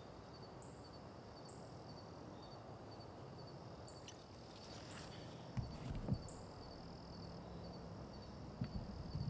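Faint chirping of insects in a steady, evenly repeating pattern of paired chirps, with a few short higher chirps scattered through. A little past halfway come a couple of soft low thumps of the camera being handled, and more handling noise near the end.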